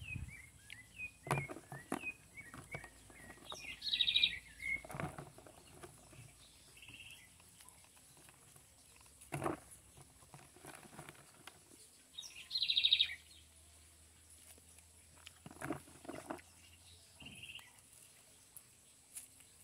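Birds chirping, with two short bright trills some nine seconds apart. Now and then dry, hard nut shells clatter and rustle as a hand stirs them in a plastic tub.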